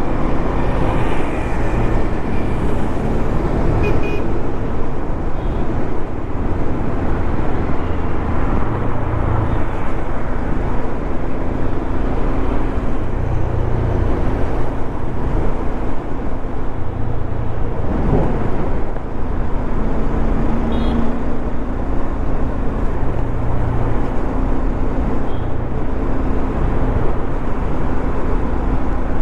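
Bajaj Dominar 400's single-cylinder engine running steadily at road speed, under a constant rush of wind and road noise on the microphone.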